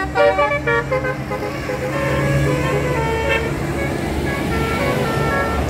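A bus's Basuri-style telolet horn, a multi-tone musical air horn, playing a melody of stepping notes. The notes are short and quick at first, then held longer, over the steady rumble of the bus engine.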